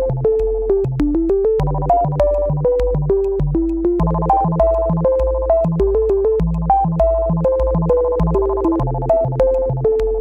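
Synthesizer background music: a steady beat with a stepping melody over held chords.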